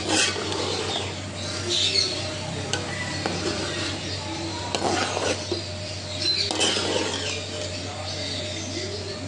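A metal ladle mixing cooked biryani rice in a pot, with several scraping strokes against the pot's sides, over a steady low hum.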